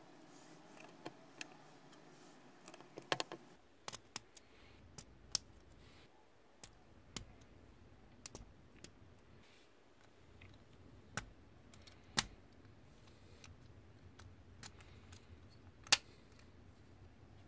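LEGO Technic plastic beams and pins clicking as they are handled and pressed together by hand: irregular sharp clicks, the loudest about 12 and 16 seconds in.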